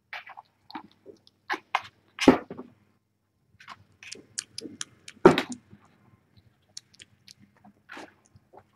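Kittens scrabbling and bumping about in a cardboard shoebox: a scatter of short scratches and taps, with two louder thumps about two and five seconds in.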